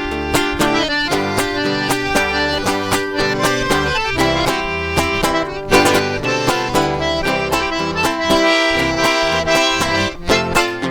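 Instrumental break in a sertanejo song: an accordion solo with sustained, chording notes over strummed acoustic guitar or viola and a bass line.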